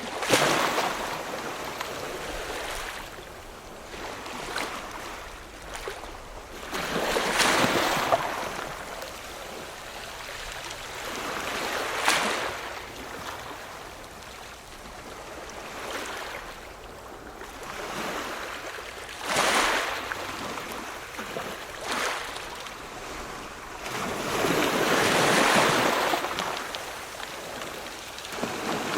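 Ocean surf: waves breaking and washing in, five surges of rushing water several seconds apart over a steady wash.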